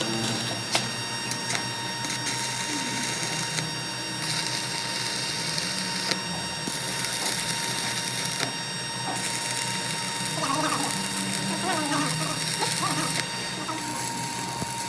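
Workshop machinery running with a steady whine. A high hiss starts and stops several times over it.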